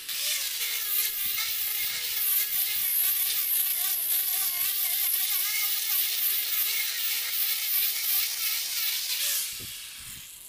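Handheld electric angle grinder with a sanding disc sanding a wooden board: a steady high motor whine that wavers as the disc is pressed to the wood, under a loud hiss of abrasion. Near the end the motor winds down.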